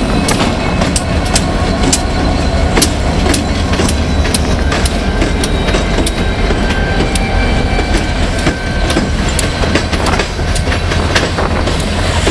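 Union Pacific freight train rolling past at close range: a steady heavy rumble, with the wheels clicking over the rail joints about twice a second.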